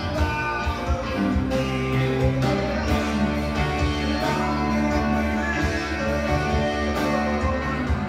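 Electric guitar, a Stratocaster-style solid-body, playing the song's chords and picked notes in a 6/8 feel, each chord ringing into the next.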